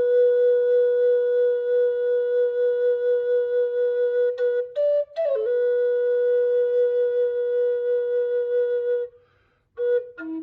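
Flute playing a slow melody: two long held notes of about four seconds each, joined by a few short notes, with a brief pause near the end before short notes start again.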